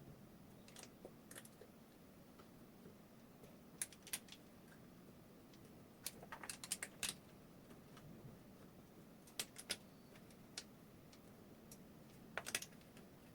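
Light clicks and taps from handling small 3D printer parts and tools during assembly, coming in short clusters a few seconds apart over a quiet room.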